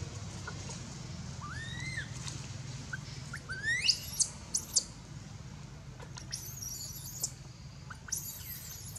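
Baby long-tailed macaque crying in distress: shrill rising squeals and screams in short bursts, the loudest and steepest about four seconds in, with clusters of very high, thin cries later. A steady low hum runs underneath.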